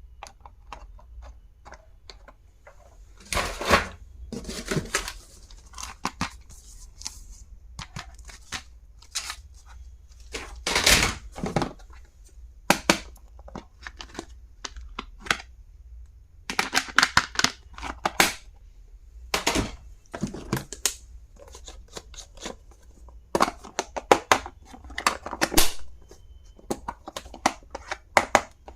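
Stationery items and their packaging being handled: irregular clicks, taps and short rustling, tearing-like scrapes, with a few louder knocks.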